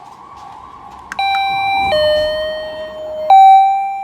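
Elevator's two-tone electronic chime sounding ding-dong twice, a higher note then a lower one each time, the second ding loudest, over a faint steady hum.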